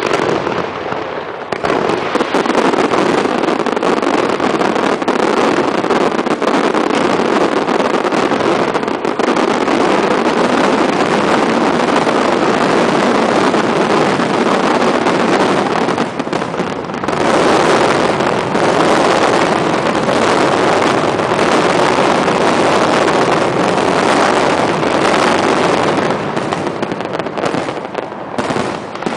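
Aerial fireworks in a rapid, continuous barrage of overlapping bangs and crackles with no gaps. It steps up in loudness about a second and a half in, and again near the middle.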